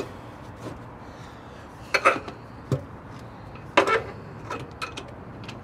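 Metal battery cable terminal clamps clanking as they are dropped back onto the truck's battery posts: two loud metallic clanks about two and four seconds in, with a few lighter clicks between.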